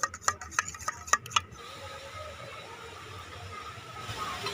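A spoon clinks rapidly against a steel bowl, about five strikes a second, as yoghurt and nut paste are beaten together. The clinking stops about a second and a half in, leaving a faint steady hiss.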